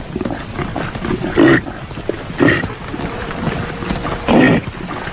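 Reindeer (caribou) calling: three short, rough grunting calls, about a second or two apart, over a steady background noise.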